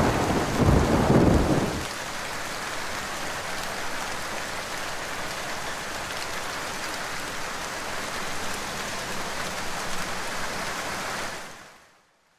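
Heavy rain falling steadily, with a loud low rumble of thunder over it for the first two seconds. The rain fades out near the end.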